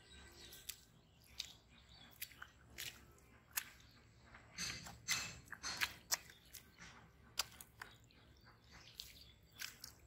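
Bare feet squelching through soft wet mud in irregular steps, with a burst of louder squelches about halfway through.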